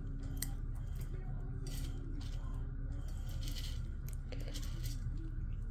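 Faint, irregular small clicks and crunches of cats eating and pawing at dry kibble on the floor and in a round scratcher toy, over a low steady room hum.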